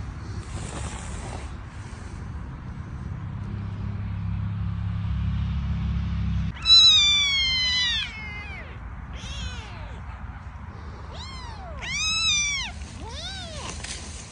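Kittens meowing: a long, high meow falling in pitch about halfway in, followed by several shorter, arching meows. A low rumble underlies the first half.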